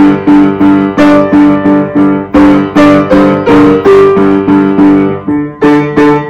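An upright piano being played: a steady run of notes, about three a second, each struck and fading, with a brief pause about five seconds in.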